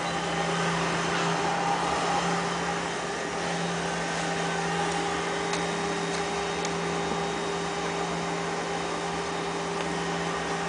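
A steady machine hum holding one pitch, over a constant rushing background noise, with a few faint ticks.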